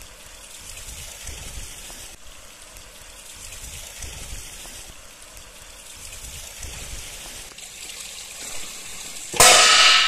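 Water trickling and splashing steadily into a water-powered tipping bird-and-boar scarer; near the end the device tips and strikes with a loud clang that rings for about a second.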